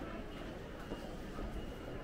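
Steady low background noise of a busy underground train station concourse, with no single sound standing out.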